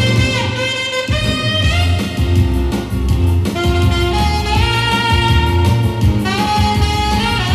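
Solo saxophone playing a melody of long held notes over a backing track with bass and drums.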